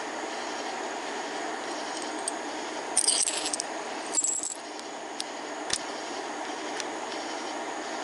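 Small metal spark plug gap tools clinking as they are handled, with two short, bright jingles about three and four seconds in and a few light ticks after, over a steady fan-like hum.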